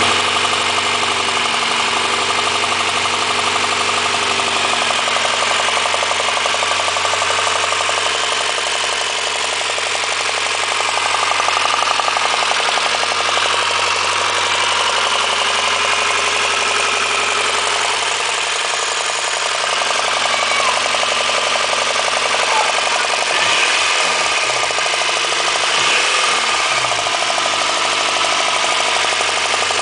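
Honda engine running at idle with a repetitive knock, which the owner suspects may be rod knock. Near the end it is revved briefly three times, each rev rising and falling.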